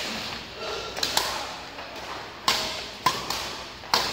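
Badminton racquets striking the shuttlecock during a fast doubles rally: a run of sharp cracks, about one a second, each echoing briefly.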